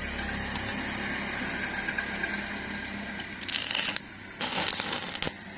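Steady hum, then two short bursts of electric arc-welding crackle, about three and a half and four and a half seconds in, as the iron stand is tacked together.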